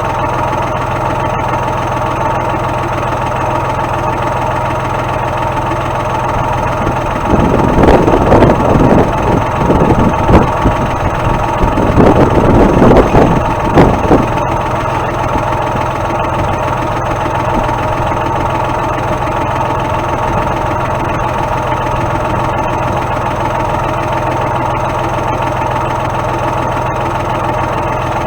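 Tractor engine idling steadily, with a louder, uneven stretch of noise from about seven to fourteen seconds in.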